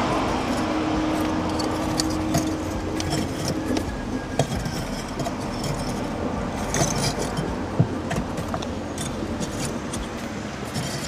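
Charcoal fire being lit in the bottom of an old oven: a steady rushing noise with scattered sharp crackles and clinks as the lumps are handled on the metal rack.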